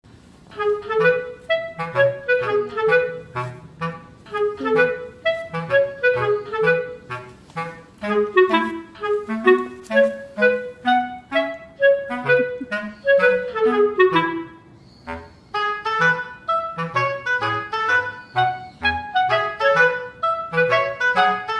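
Background music: a quick, bouncy instrumental tune of short notes over a bass line, with a brief break about fifteen seconds in.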